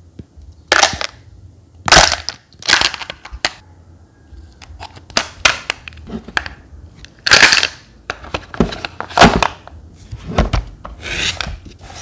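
Hard plastic clicking, knocking and scraping as the plastic water tray of a mini fan humidifier is handled and fitted to the fan's base. The sharp clicks come irregularly, with several louder scrapes among them.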